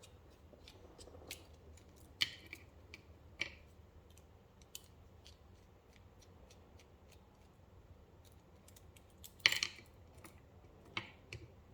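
Scattered small metal clicks and taps of a screwdriver and loosened screws as the back plate of a Lockwood 334C45 padlock is taken off. A louder cluster of clicks comes about nine and a half seconds in.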